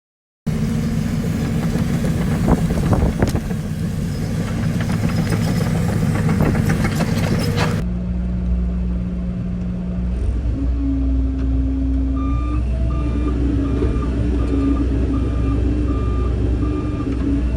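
Heavy earthmoving machines working in mud: diesel engines running under load with many sharp metallic clanks. Partway through, the sound changes abruptly to a steady engine drone, and a back-up alarm starts beeping about one and a half times a second.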